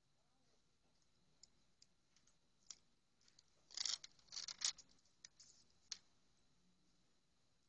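Faint handling sounds of wooden stretcher bars and paper: scattered light clicks, with a brief cluster of louder scrapes and rustles about four seconds in.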